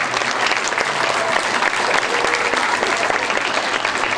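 Audience of schoolchildren and teachers applauding, a dense, steady clapping.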